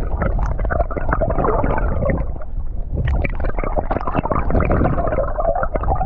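Loud, gurgling rush of river water close to the microphone, with a deep rumble and constant crackle.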